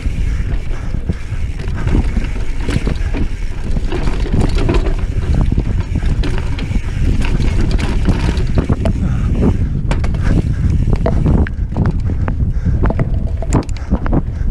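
Mountain bike rolling fast down a dirt trail, with wind buffeting the microphone and the tyres rumbling over the ground. Frequent short rattles and knocks come from the bike as it goes over bumps.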